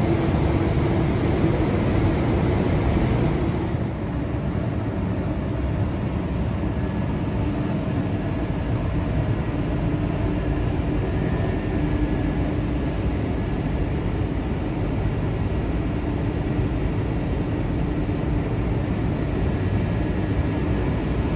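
Newag Griffin (EU160) electric locomotive standing at the platform, its blowers and auxiliary equipment running with a steady drone and a faint hum. A brighter hiss over it stops about four seconds in.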